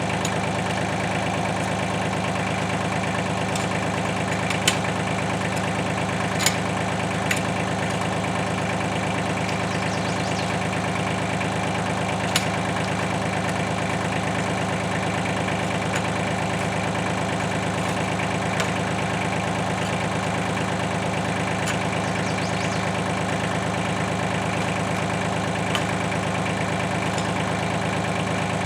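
Tractor engine running steadily at a constant speed, with a few sharp clicks or knocks standing out at intervals.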